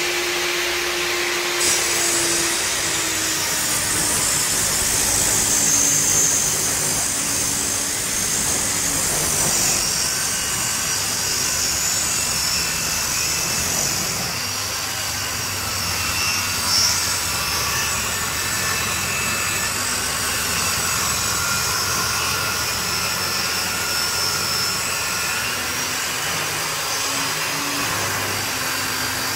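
Table saw resawing a thick reclaimed-wood board, splitting it in half through its thickness, the blade cutting steadily. About two seconds in the cut bites and a high whine of blade in wood comes in, while the motor's hum drops slightly in pitch under the load.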